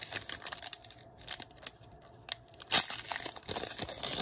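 Foil wrapper of a trading-card pack crinkling and crackling irregularly as fingers work at tearing it open. It gets louder and busier about three seconds in.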